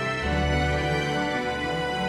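Background music of sustained, held notes, with a deep bass note coming in just after the start.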